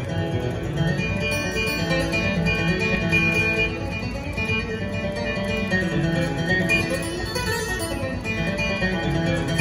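Solo steel-string acoustic guitar played with a flatpick: a steady, unbroken run of picked melody notes over bass notes, in bluegrass flatpicking style.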